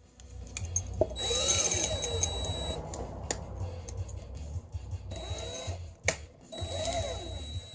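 Cordless drill run in three short bursts, the motor speeding up and slowing down each time, with a few clicks between bursts.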